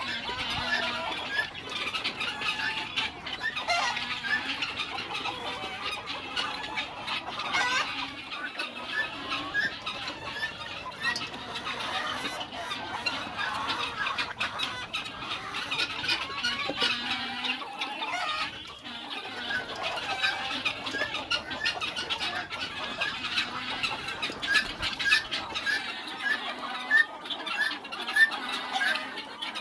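A large flock of chickens clucking and squawking continuously, many overlapping calls, with a run of quick repeated chirps near the end.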